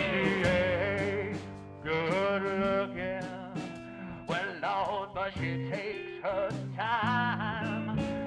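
Country-style background music with guitar.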